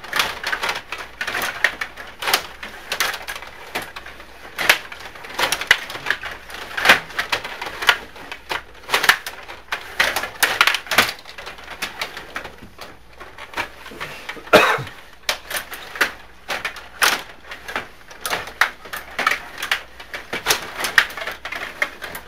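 Stiga rod hockey game in play: an irregular clatter of sharp plastic clacks, several a second, as the players strike the puck and the puck knocks against the boards.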